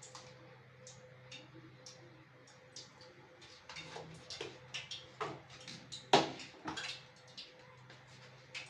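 Light, irregular clicks and taps of kitchen items being handled and set down, with one louder knock about six seconds in, over a faint steady hum.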